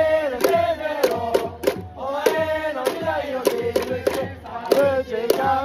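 Baseball stadium crowd chanting a cheering song in unison, held sung notes over a steady beat of sharp strokes about two and a half a second.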